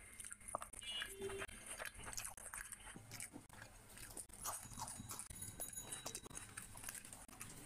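Close-miked chewing and biting of grilled chicken and a raw green chilli: many short mouth clicks and smacks in an uneven run.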